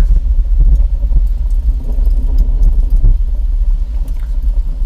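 Recorded crackling-fireplace soundscape from the car's built-in 'Sounds of Nature' feature, played through the Bose speakers inside the cabin: a deep steady rumble with occasional faint crackles.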